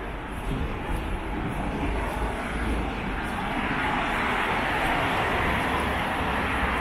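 A passing vehicle's rushing noise, a steady roar without clear pitch that swells from about halfway through and stays loud to the end.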